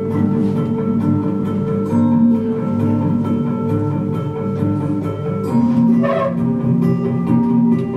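Music led by a plucked guitar, with held notes and a short strum about six seconds in.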